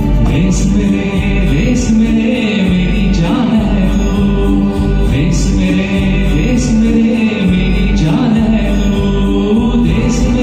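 A singer performing a Hindi patriotic song over a backing music track, holding long melodic vocal lines. Regular percussion strokes come roughly every second and a half.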